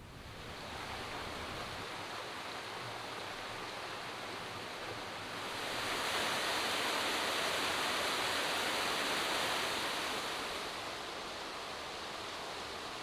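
Rushing water, a steady hiss that swells louder about five seconds in and drops back about five seconds later.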